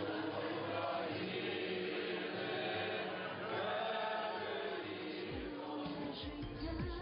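Choir singing a slow chant, several voices holding long notes; the singing thins out near the end as low sliding tones come in.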